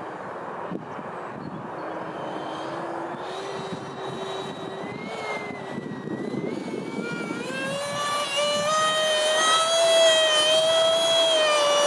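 Six-blade electric ducted fan of a Freewing Eurofighter RC jet whining in flight, its pitch wavering over a rushing wind noise. From about two-thirds of the way through the whine climbs higher and grows louder.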